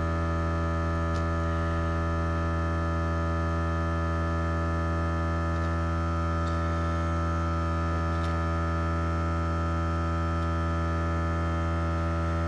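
Airbrush air compressor running with a steady electric hum full of overtones, and a few faint clicks over it.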